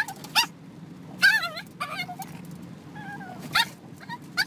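Small black dog barking and yelping in about six short, high-pitched calls, some wavering in pitch. Under them runs the steady low rumble of the moving car it is riding in.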